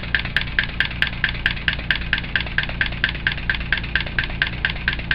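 Stuart Models 10V single-cylinder vertical model steam engine running steadily on compressed air. Its exhaust puffs in a quick, even hiss of about five beats a second.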